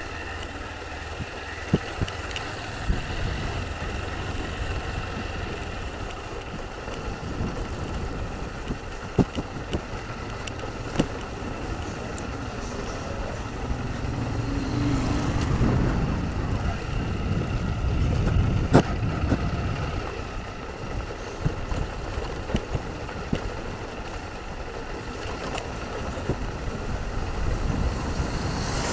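Honda CG 160 Fan's single-cylinder four-stroke engine running under way, with wind on the helmet microphone; it swells louder about halfway through. A few sharp knocks stand out, which the rider takes for a rattle that persists after the front fairing clips were tightened.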